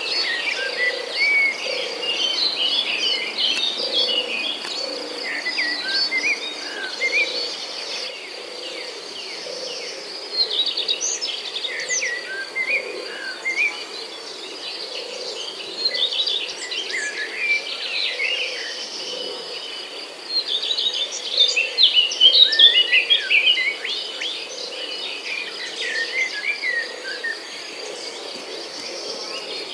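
Countryside birds chirping in busy bursts of quick notes, over a steady high insect trill, with a soft low call repeating about once every second.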